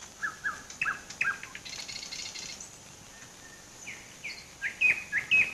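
Birds chirping: quick, short whistled notes in two runs, one in the first second or so and another near the end, with a brief buzzy trill about two seconds in.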